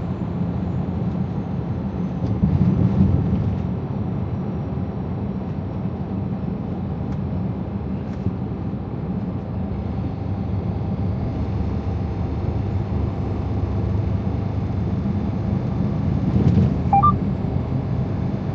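Steady cab noise from a Freightliner Cascadia semi truck driving at road speed: a low drone of engine and tyres, swelling slightly a couple of times.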